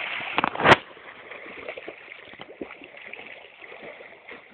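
Pond water splashing around a swimmer, with one loud splash just under a second in, then quieter sloshing.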